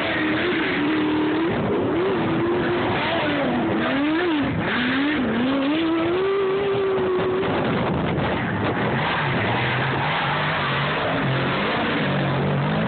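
Off-road race vehicle engine running hard, its pitch rising and falling with the throttle, with a lower engine note taking over in the second half.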